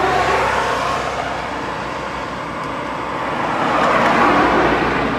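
Cars driving past on a paved road, a steady rush of tyre and engine noise that swells as each one goes by, loudest about four seconds in.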